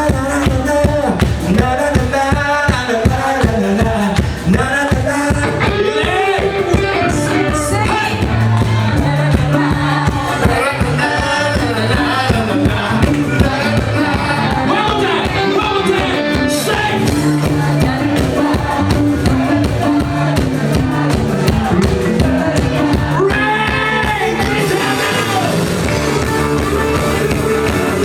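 Live rock band playing with drums, bass and a singer's voice over a steady beat.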